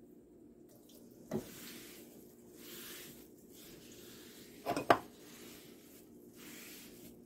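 Repeated swishing strokes of a hand wiping down a countertop. A knock about a second in, and a quick double clack near the middle, the loudest sound.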